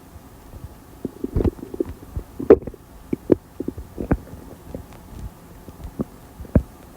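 Stomach gurgling and rumbling as a soda and a lunch are digested: an irregular run of short gurgles and pops, the loudest about two and a half seconds in and again near the end.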